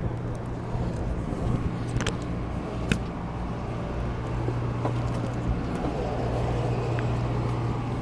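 Steady low hum of the fishing boat's engine, with a couple of sharp clicks about two and three seconds in.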